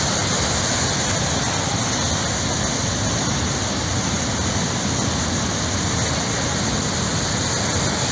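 Steady, unbroken rushing of a river in heavy flood, fast brown water churning over its whole width.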